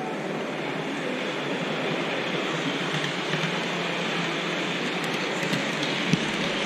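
Model train running along the layout's track: a steady rumble of wheels and motor that builds over the first couple of seconds, with a few light clicks and one sharp knock about six seconds in.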